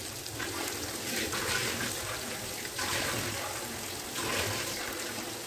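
Sliced onions frying in hot oil in a pot: a steady sizzling hiss that swells and eases a few times.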